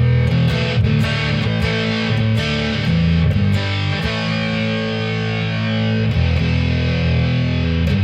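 Electric guitar played through a hand-built clone of a Jack Orman fuzz pedal, switched on: a series of fuzzy strummed chords, each ringing out.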